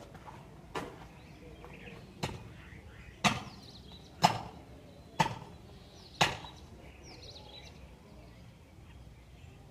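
Six sharp knocks about a second apart, each with a short ringing tail, followed by a few faint bird chirps near the end.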